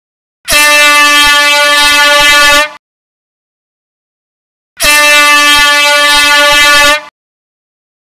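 Air horn sounding two loud blasts of about two seconds each, one steady tone, with a pause of about two seconds between them.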